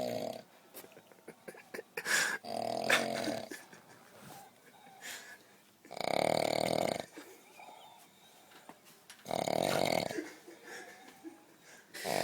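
A person snoring loudly in deep sleep: three long snores, each about a second long, repeating every three to four seconds.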